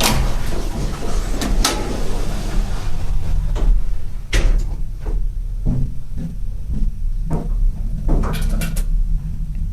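National-made elevator: a steady low hum with a series of sharp knocks and clunks spread irregularly through it.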